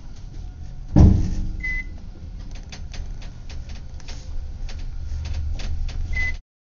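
Elevator car descending with a steady low rumble, a loud thud about a second in, scattered clicks and two short high beeps; the sound cuts off suddenly near the end.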